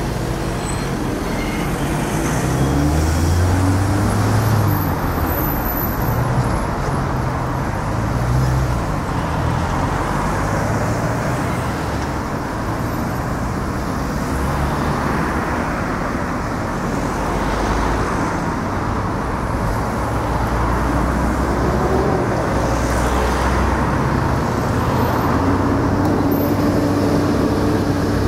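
Steady road traffic noise, with car and lorry engines rising and falling as vehicles pass on and near the road bridge.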